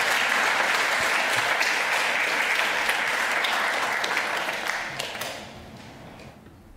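Audience applauding, fading out about five seconds in.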